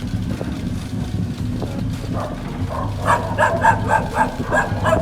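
A dog barking in a rapid run of short barks, about four or five a second, starting about three seconds in, over a steady low engine hum.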